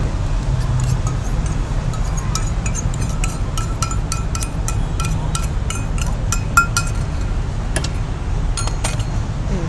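A fork clinking quickly and irregularly against a small metal bowl as curd is beaten smooth, with a faint ring after some strokes, over a steady low hum.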